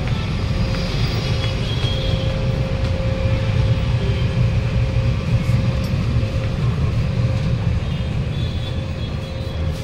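Steady low rumble of background noise with a faint steady hum above it.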